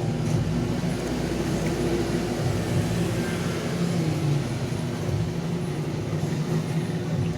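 A steady, low mechanical hum over a background rush of noise.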